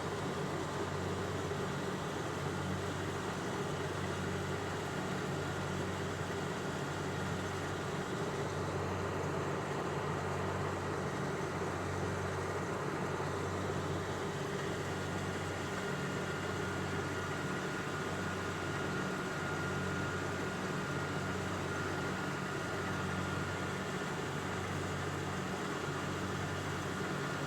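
An engine running steadily at a constant level, its low hum rising and falling in a slow, regular pulse. A faint high whine joins about halfway through.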